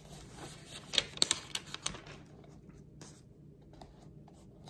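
Paper rustling as a page is handled and turned: a quick cluster of short rustles and clicks between about one and two seconds in, over a faint steady room hum.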